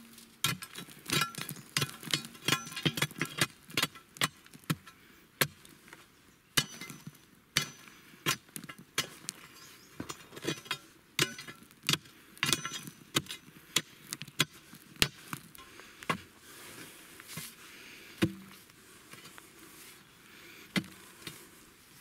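Steel digging bar jabbed again and again into the bottom of a post hole in hard, stony ground, giving an irregular run of sharp metallic strikes and thuds. They come thick and fast at first and thin out to a few blows in the last few seconds.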